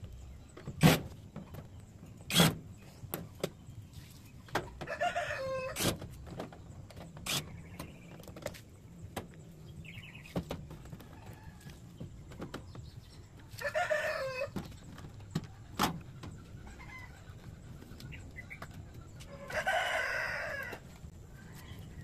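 A rooster crows three times, each call about a second long: about five seconds in, near the middle, and near the end. Between them come sharp knocks and clicks, the loudest two in the first few seconds, as the plastic back cover of a washing machine is worked loose and pulled off.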